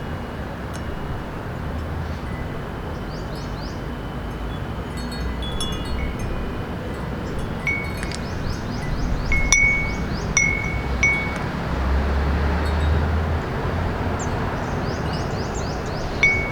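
A small wind chime ringing in the breeze: scattered single clear strikes, with a run of chimes between about eight and eleven seconds in and another near the end. Under it runs the steady hum of city traffic.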